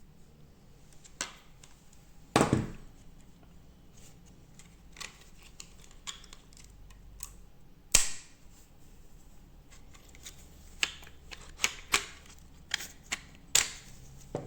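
Sharp plastic clicks and knocks from 3D-printed crossbow parts being handled and worked, with two loud snaps about two and a half and eight seconds in and a run of quicker, lighter clicks near the end.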